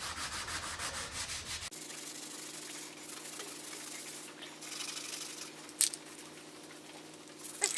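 Abrasive pad scrubbing the oiled cast iron top of a table saw in rapid back-and-forth strokes to take off rust, stopping abruptly about two seconds in. A quieter low steady hum follows.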